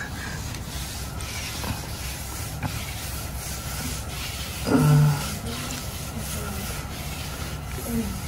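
Cloth mop head scraping and rubbing across a bare concrete floor as it is pushed back and forth, with a brief voice sound about halfway through.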